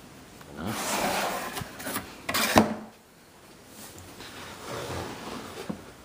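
Cardboard box being opened by hand: the lid rubs and scrapes as it comes off, with a louder scrape about two and a half seconds in, then fainter rustling of the cardboard packing.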